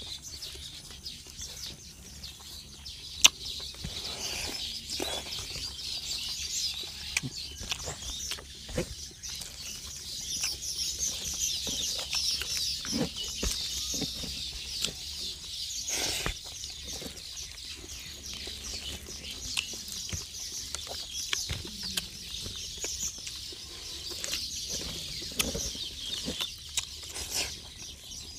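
Eating by hand: fingers squishing and mixing rice and liver on a banana leaf, and chewing, heard as scattered short clicks and wet smacks, with one sharp click about three seconds in. A steady high chirping of birds or insects runs underneath.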